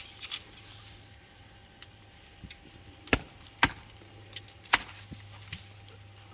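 Hemlock Ares blade chopping into dead tree branches: three sharp chops about three to five seconds in, with a few lighter strikes around them.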